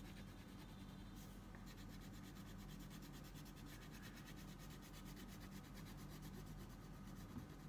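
Crayon rubbing back and forth on drawing paper in rapid, even strokes, faint, over a steady low hum.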